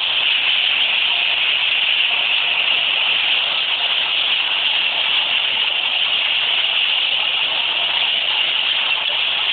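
Washing machine running at full speed with its timer bypassed: a steady, even rushing noise with no knocks.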